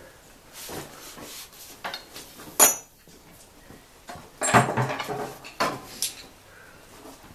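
Steel sawmill parts and tools clinking and clanking as they are handled: a few light knocks, a sharp ringing metallic clink about two and a half seconds in, then a louder clatter of metal about two seconds later.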